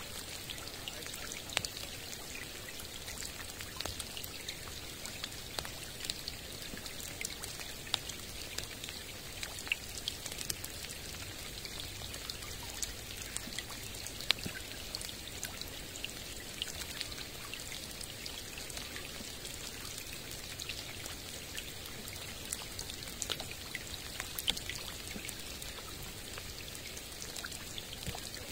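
Rain falling on a lake's surface: a steady hiss with many separate drops landing close by as sharp little ticks, one a little louder about fourteen seconds in.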